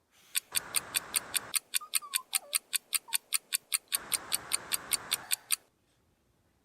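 Fast, even clock-like ticking, about five ticks a second, with a rushing hiss in two stretches and a short wavering tone in the middle; it cuts off shortly before the end.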